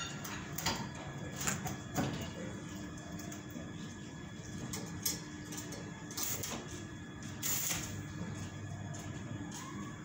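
Stick (arc) welding tacks on a steel trolley frame: short crackling bursts from the welding arc over a steady hum, the longest bursts about six and seven and a half seconds in.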